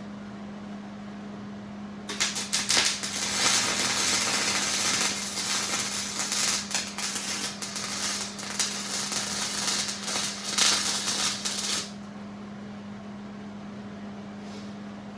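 Hobart MIG welder arc crackling and sputtering for about ten seconds, starting about two seconds in and stopping suddenly, over a steady low hum. The bead is laid without the shielding gas turned on, which leaves the welds on the cracked snowplow frame porous and rough.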